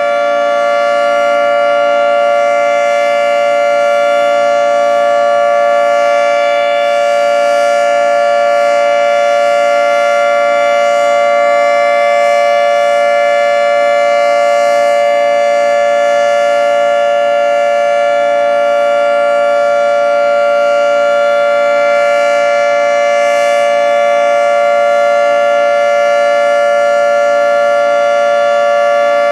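Federal Signal 2T22 dual-tone omnidirectional civil defense siren sounding its steady Alert signal: two close pitches held together, loud and unwavering, with no rise or fall.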